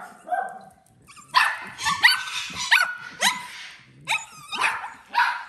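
A small animal barking in a rapid string of short, high-pitched yips, a dozen or so, several sliding down in pitch.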